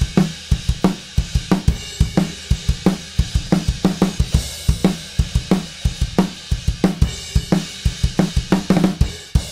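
Recorded drum kit playing a steady groove of kick and snare hits under hi-hat and cymbals. The snare is a sampled, low-tuned 14x7 DW Collector Series snare triggered from MIDI, with most hits at high velocity after a logarithmic velocity change.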